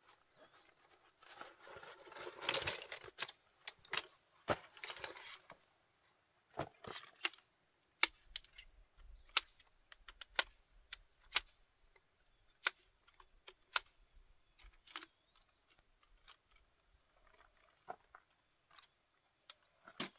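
Rustling of a fabric carry bag, then a long irregular series of sharp clicks and knocks as the metal frame of a folding camp chair is unfolded and its legs set out.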